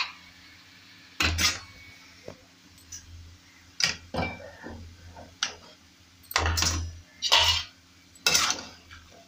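A spoon scraping and clinking against a metal kadhai as chopped tomatoes are stirred, in about eight uneven strokes.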